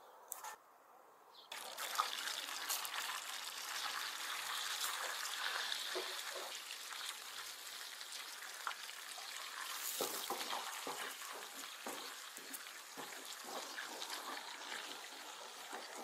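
Butter sizzling and crackling in a copper pan with red pepper flakes and spices in it, starting suddenly about a second and a half in. In the second half a wooden spoon stirs through it, adding short scraping strokes.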